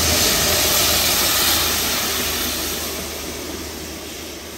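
Railhead treatment train passing with a Class 66 diesel locomotive: the hiss of its high-pressure water jets blasting the railheads over the low running of the locomotive's two-stroke V12 diesel engine. The sound fades away steadily from about a second and a half in as the train pulls away.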